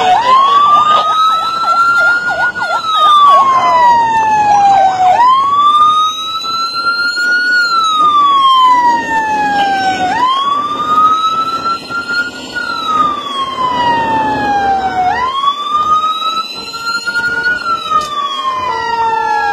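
Police siren wailing, rising quickly and falling slowly about every five seconds. A faster yelping warble runs under it over the first few seconds.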